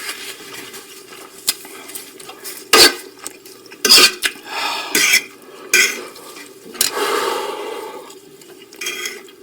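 Eating utensils knocking and scraping against a bowl of noodles, with about five sharp clinks spread through the middle of the stretch.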